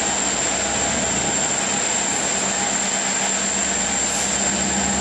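Steady wind rushing over the microphone, loud and unbroken.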